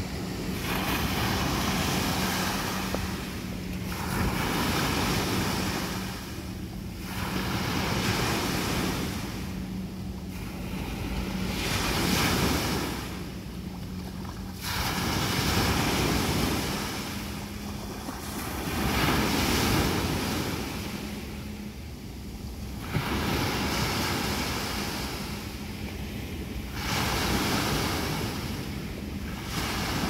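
Small sea waves breaking and washing up a sandy beach, the surf swelling and fading every three to four seconds.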